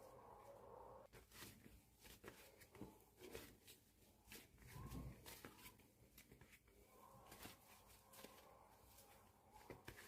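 Faint, irregular small clicks and squishes of slime being handled.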